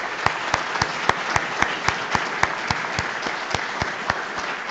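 Audience applauding, with one person's claps close to the microphone standing out clearly at about four a second.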